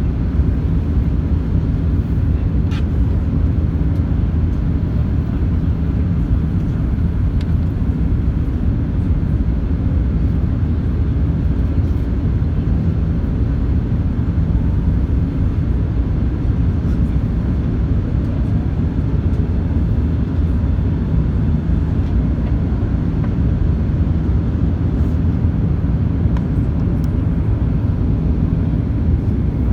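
Steady, loud low rumble of an Airbus A380's Rolls-Royce Trent 970 engines and rushing air, heard from inside the cabin during the climb after takeoff.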